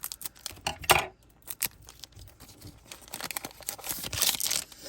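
Foil trading-card booster pack being torn open and crinkled: scattered sharp crackles with a loud one about a second in, then a longer stretch of dense crinkling near the end.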